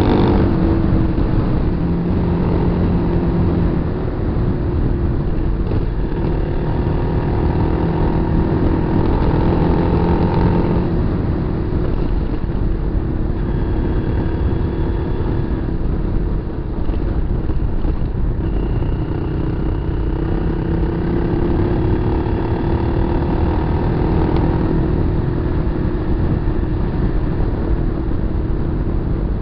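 Kawasaki KLR250's single-cylinder four-stroke engine running under way off road, its pitch falling and rising several times with the throttle, over a constant low rumble.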